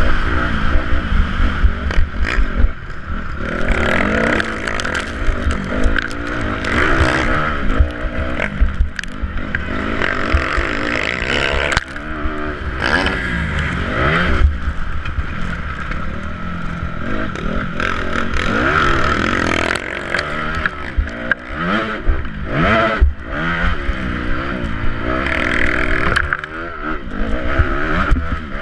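Motocross bike engine heard from the rider's helmet, revving up hard and dropping back again and again through the corners and straights, with scattered knocks and a steady low rush of wind on the helmet camera.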